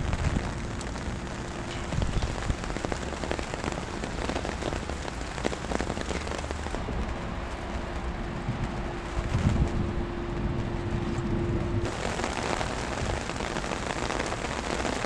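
Steady rain falling and pattering on surfaces, an even hiss.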